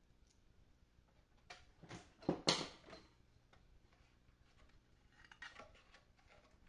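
Light clicks and a short clatter of small parts and tools being handled on a workbench, loudest about two and a half seconds in, with fainter clicks after.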